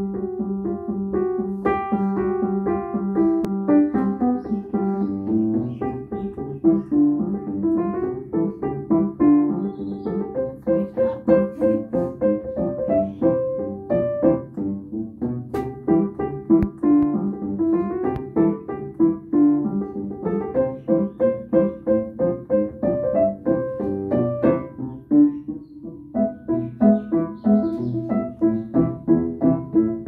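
Solo piano playing a ragtime piece: short, detached notes in a steady rhythm.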